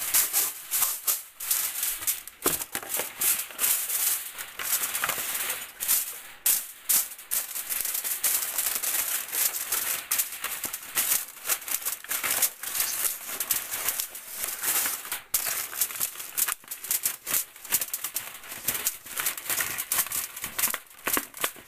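Aluminium foil crinkling and crackling without a break as it is pressed and crimped over the rim of a disposable aluminium pan.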